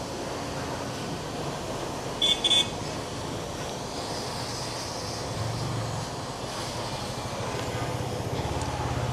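Two short, high-pitched vehicle horn beeps about two seconds in, over steady street traffic noise, with a low engine rumble building toward the end.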